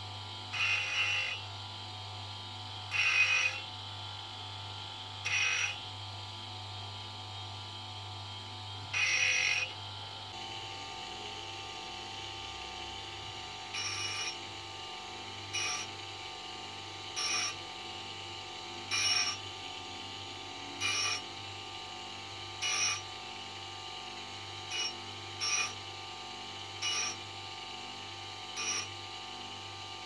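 A small electric bench grinder runs with a steady hum while a brass hex nut is pressed against its spinning abrasive disc in short grinding rasps, about one every two seconds. The first few rasps, in the first ten seconds, are longer and louder. The rest are briefer touches.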